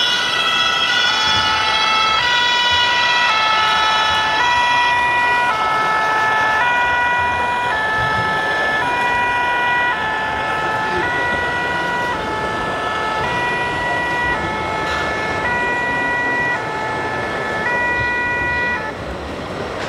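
RC scale fire truck's sound module playing a German-style two-tone siren (Martinshorn): two pitches alternating about once a second, stopping near the end, over the noise of a busy exhibition hall.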